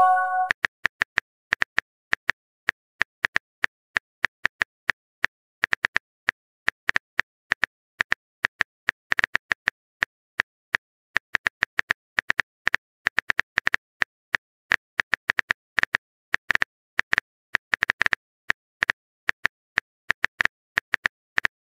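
Phone keyboard typing sound effect: irregular quick taps, several a second, as a chat message is typed out. It opens with the tail of a short message chime.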